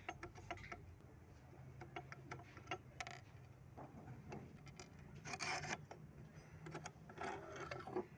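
Faint metal clicks and scrapes as the screw is taken out of a sewing machine's steel needle plate and the plate is lifted off the machine bed, with two short scrapes in the second half.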